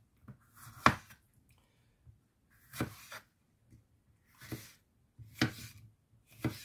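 Chef's knife slicing a red bell pepper on a wooden cutting board, each cut ending in a sharp knock of the blade on the board. About five strokes come at uneven intervals of one to two seconds, the first the loudest.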